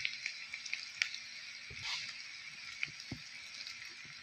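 Onions, green chilies and curry leaves frying in oil in a wok: a soft, steady sizzle with a few scattered crackles.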